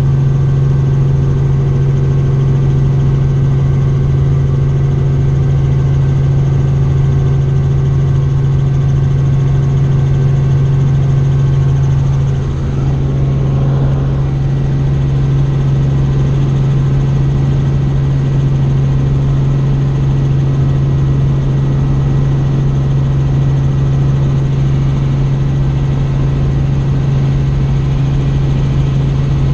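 Tour helicopter in flight, heard from aboard: a loud, steady drone of rotor and engine with a strong low hum. It dips slightly for a moment about twelve seconds in.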